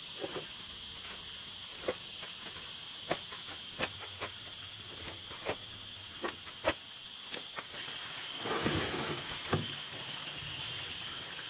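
Shovel digging into loose soil and tipping it into a metal wheelbarrow: sharp scrapes and knocks about once a second, over a steady high insect drone. About eight seconds in comes a longer rough noise lasting a second or two, as the loaded wheelbarrow is moved.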